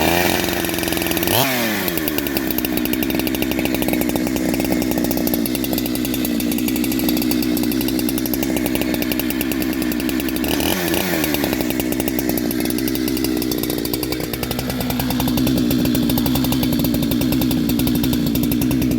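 Two-stroke chainsaw fitted with a shotgun-style pipe muffler, running just after starting. It gives a short rev about a second and a half in and another around eleven seconds, then the engine speed steps up and holds higher for the last few seconds.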